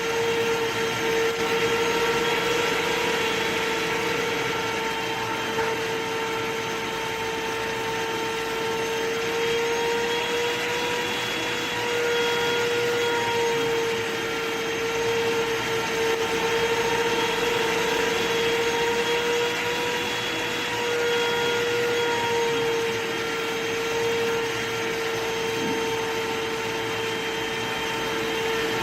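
Vacuum cleaner running steadily: a motor whine over rushing air, its pitch wavering slightly and its loudness swelling and easing every few seconds.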